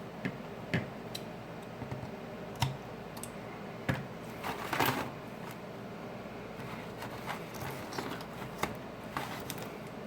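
Scattered small clicks and taps of hand tools and parts being handled on a work surface, with a brief rustle about halfway through.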